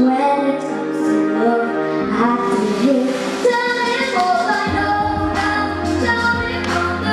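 A young girl singing a song into a microphone over instrumental accompaniment; a deeper bass part comes in about two-thirds of the way through.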